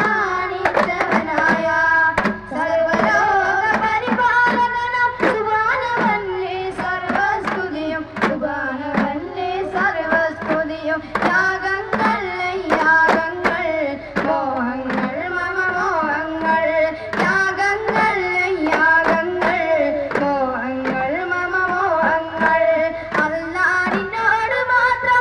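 Daff muttu: a group beating daf frame drums in a steady rhythm, sharp hand strikes on the skins, while a Malayalam devotional song praising Allah is sung over them.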